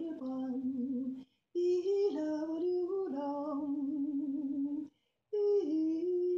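A woman's voice singing slow, long held notes in three phrases, with a short break for breath between them.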